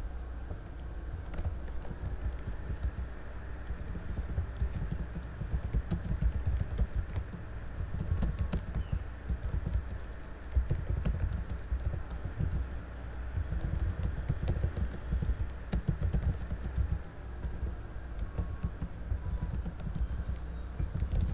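Typing on a computer keyboard: irregular clicking keystrokes, in runs with short pauses, over a steady low hum.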